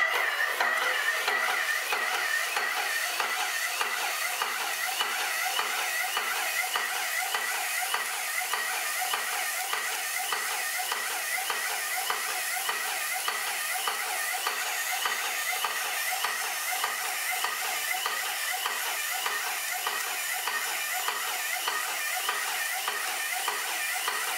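Aspro 6000 airless sprayer spraying putty through the gun's tip: a steady hiss of the spray jet, with fine, fast, regular ticking over it. The spray holds a stable fan.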